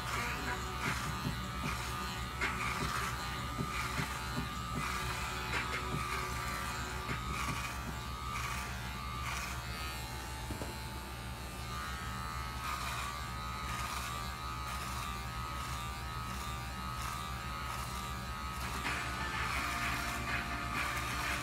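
Electric hair clippers with a guard running with a steady buzz as they cut short hair, with music playing behind them.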